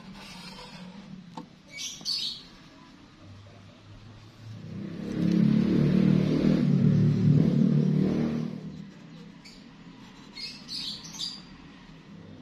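Permanent marker squeaking in short strokes on galvanized steel tube, about two seconds in and again near the end. In the middle a much louder low rumble swells and fades over about four seconds.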